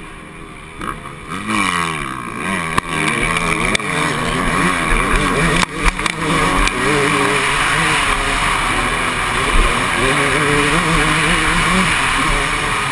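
Dirt bike engine revving up and falling back again and again as the bike accelerates and shifts around a motocross track, with a brief drop in revs a little before the middle. Wind rushes over the microphone.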